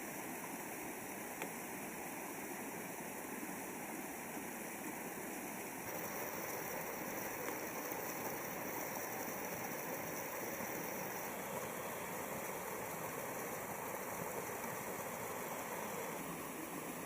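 Steady rush of falling water from a waterfall, a little louder from about six seconds in.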